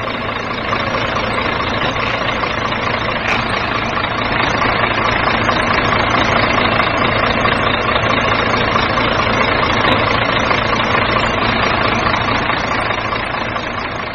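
A truck engine idling steadily.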